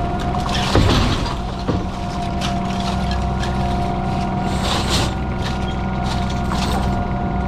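Scallop fishing boat's engine running steadily, with a loud knock a little under a second in, a smaller knock about a second later, and brief clattering noises.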